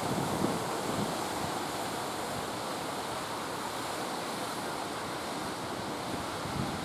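Heavy storm surf rushing and breaking steadily, with wind buffeting the microphone.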